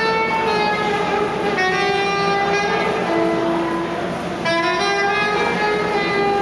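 A busker playing a slow melody of long held notes on a single melodic instrument.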